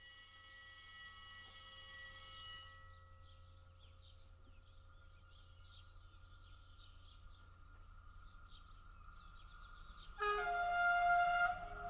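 Horn of a BB 67300 diesel locomotive: a steady high chord that grows louder and cuts off abruptly about a quarter of the way in, then birds chirping, then a louder horn blast of about a second and a half near the end as the locomotive approaches.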